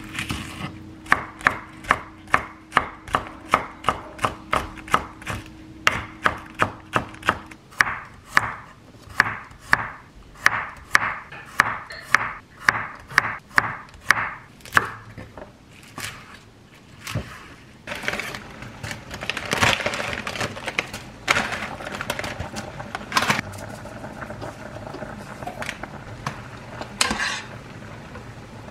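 Chef's knife chopping green onion and then garlic cloves on a wooden cutting board: a steady run of sharp knocks, about two or three a second, for roughly the first fifteen seconds. After that the knocks give way to a noisier stretch of clatter and scraping as spaghetti is stirred in a pot of boiling water.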